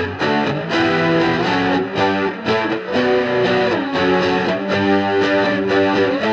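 Progressive rock music: layered electric guitars, some distorted, playing sustained chords that change about once a second over bass, with a steady drum beat.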